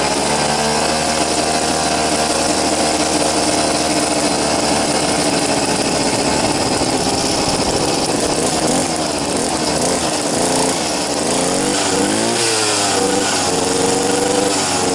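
Brush cutter engine running through an air-filter element mounted directly on the exhaust manifold as a muffler: it idles steadily, then is revved up and down several times about nine to thirteen seconds in before settling back to idle.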